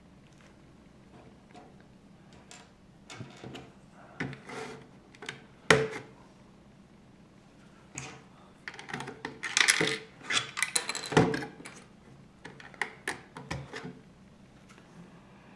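Plastic LEGO pieces clicking and clattering as they are handled and pressed onto the model. Scattered clicks, one loud click about six seconds in, and a busier run of clatter around ten seconds.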